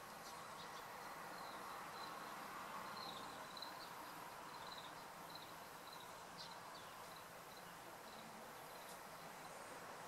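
Faint outdoor ambience: a steady low hiss with a string of short, high chirps running through most of it.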